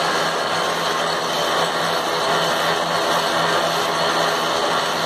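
Metal lathe running steadily, an even machine noise with a steady hum.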